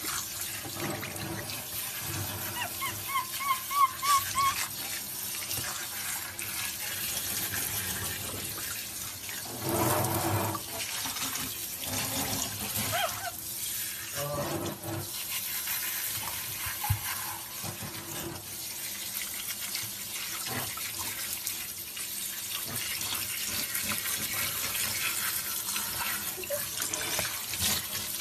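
Water from a handheld shower sprayer running steadily as it rinses a wet capuchin monkey in a bathtub. A brief run of short, high, repeated chirps sounds about three seconds in.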